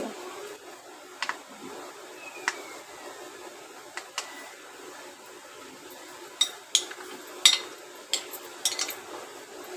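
A plastic spoon clicking against a glass bowl while mixing raw mutton liver pieces with vinegar: a few scattered sharp clicks, then a quicker run of louder ones in the second half.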